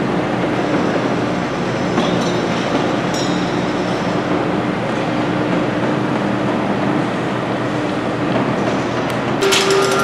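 Steady low mechanical rumble with a humming tone and a few faint metallic clinks, typical of a busy construction site. About half a second before the end, a rapid mechanical hammering starts.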